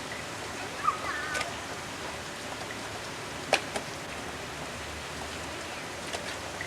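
Steady hiss of rain falling, with a few sharp drips or taps, the loudest about halfway through.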